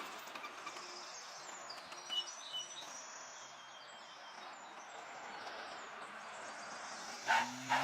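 Birds chirping over a steady background hiss, with two short knocks near the end.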